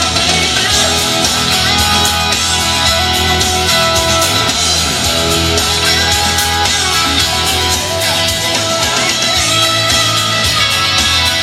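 Loud guitar-driven rock music with a steady drum beat.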